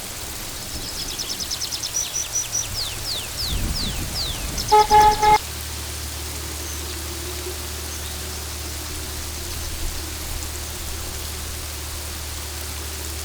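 A bird's high, rapid trill followed by a few quick downward-sliding whistled notes, then one short vehicle horn blast, the loudest sound, about five seconds in. After the horn, a steady low hum continues.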